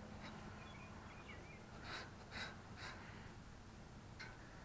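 Faint, brief rubbing strokes of a cloth wiping plastic bumper trim, three in quick succession about two seconds in and one more near the end, with small bird chirps about a second in.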